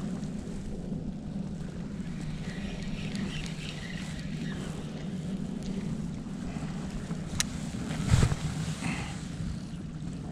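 Steady low hum and water noise of a fishing kayak out on the water, with a sharp click about seven seconds in and a louder knock just after.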